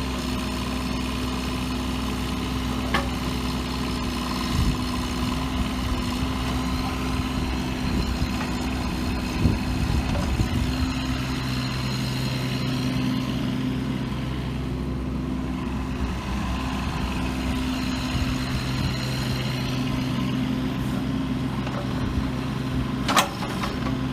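Bobcat 324 compact excavator's diesel engine running steadily, a lower hum joining about eleven seconds in. A few sharp clicks or knocks, the loudest near the end.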